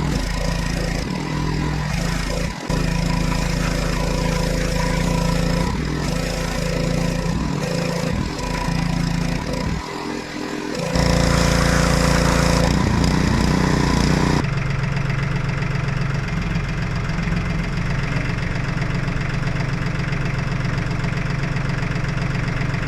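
Gas-engine pressure washer running steadily. A louder hiss of spray comes for a few seconds about halfway, and the engine's note shifts a little after that.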